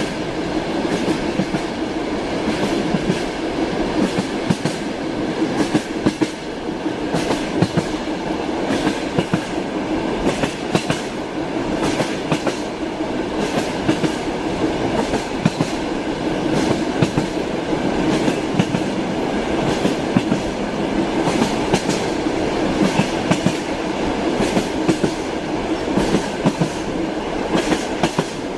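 Train wheels clattering over rail joints as the railway carriage moves at a steady speed: a continuous rumble with frequent sharp clicks coming in loose clusters.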